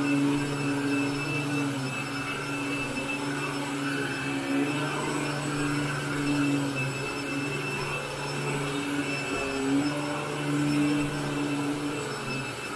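Royal commercial upright vacuum running steadily on carpet, pulling dry soil out ahead of cleaning. Its motor hum wavers slightly in pitch every few seconds as it is pushed back and forth.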